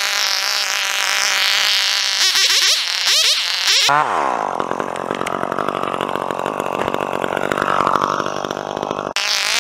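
Echo two-stroke chainsaw running at high revs, then revving up three times in quick succession. It goes into the trunk with its pitch falling as it takes the load, and cuts steadily through the wood until the sound breaks off suddenly near the end.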